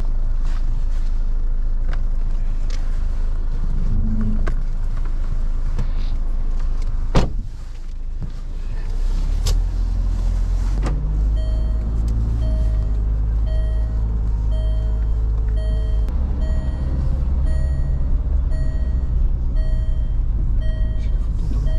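Car heard from inside its cabin, moving slowly over a pebble riverbank: a steady low engine and tyre rumble, with a single thump about seven seconds in. Through the second half, a dashboard warning chime repeats about twice a second.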